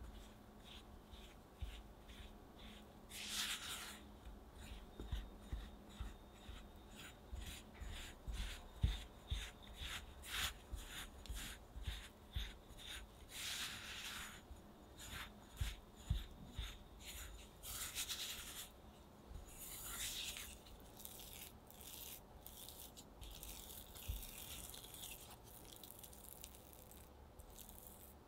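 Silicone spatula mixing chocolate cookie dough in a glass bowl: repeated soft scrapes and presses against the glass, about one or two strokes a second, with a few longer smearing sweeps, as dry flour and cocoa are worked into butter until the dough comes together.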